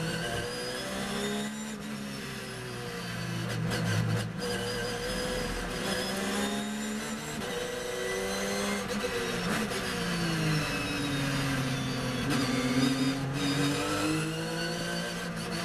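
Porsche 911 GT3 R race car's flat-six engine heard from inside the cockpit, accelerating hard with its pitch climbing through several quick upshifts. About ten seconds in the pitch falls as the car brakes and downshifts for a corner, then it climbs again.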